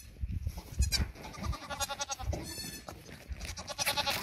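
Goats bleating: a drawn-out bleat from about a second in and a quavering one near the end, with a sharp knock just before the first.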